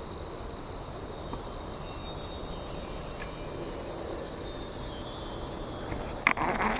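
A shimmering chime sound effect: many high, bell-like tones sparkle in and slide gradually downward in pitch over about five seconds. Near the end there is a sudden rustle and knock of a jacket sleeve brushing against the head-mounted camera.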